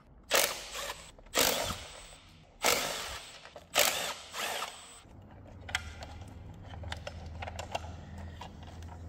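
A tool undoing the fasteners of the hybrid battery's control module, in four short noisy bursts about a second apart. After that come lighter clicks of the module being handled and lifted out, over a faint low hum.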